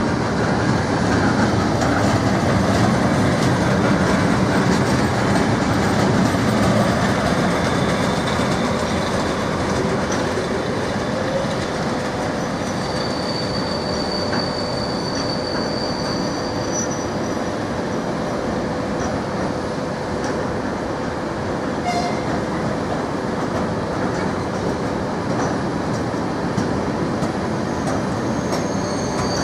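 Freight train of covered sliding-wall wagons rolling past with a steady rumble of wheels on rail. Thin, high wheel squeals come and go, strongest about halfway through and again at the very end.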